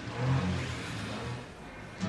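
1998 Subaru Sambar kei truck's 660 cc four-cylinder engine running as the truck drives away, fading about one and a half seconds in.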